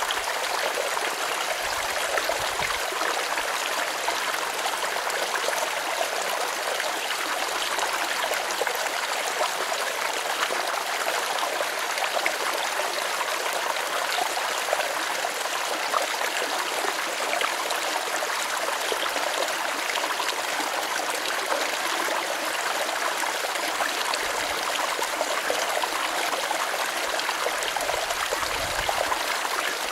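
Small stream running over stones, a steady babble and trickle of water.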